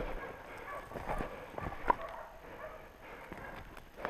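Slow footsteps crunching in deep snow and brushing through snow-laden branches, with irregular rustles and soft knocks and one sharper snap about two seconds in.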